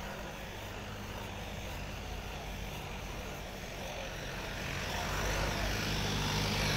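Street traffic: a vehicle engine humming steadily, growing louder over the last couple of seconds.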